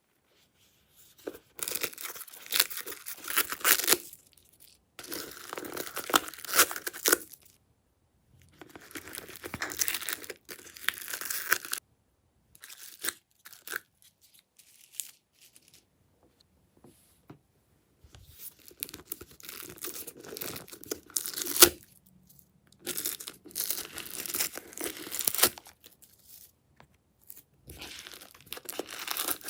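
Glossy slime being stretched, folded and pressed by hand, giving sticky crackling and tearing sounds. These come in bursts of two to four seconds with short pauses between them.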